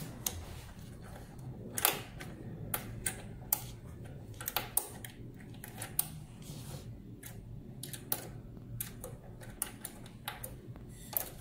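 Irregular light clicks and taps of hands working a small screw and fittings on a hematology analyzer's metal CRP chamber, a few a second at uneven spacing, over a faint steady low hum.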